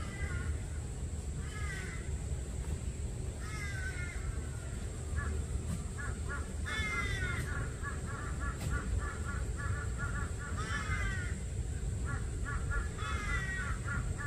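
Birds calling over a steady low rumble. Single harsh calls come every couple of seconds, and from about five seconds in there are fast runs of short, evenly repeated notes.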